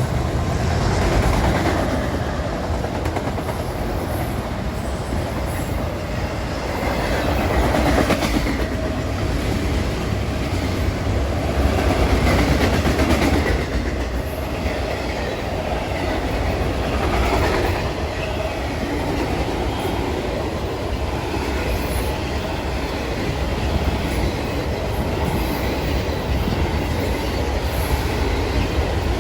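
Train cars rolling steadily past, with a heavy low rumble and recurring louder surges every few seconds as the cars go by.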